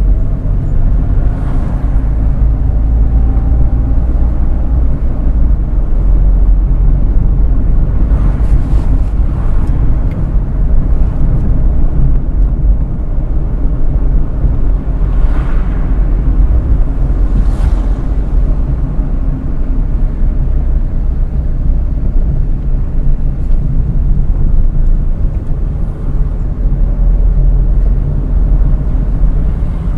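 Steady low rumble of a moving car's engine and tyres, heard from inside the cabin, with a few brief swishes along the way.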